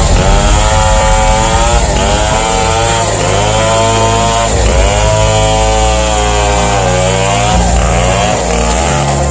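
Modified Stihl chainsaw with a 1.7 m bar running at high revs, its pitch dipping and recovering again and again as the chain bogs in the cut and frees up, while ripping a banyan log into lumber.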